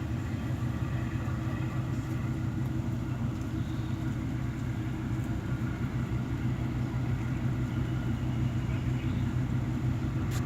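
Steady low mechanical drone with a constant hum, like large engines or machinery running.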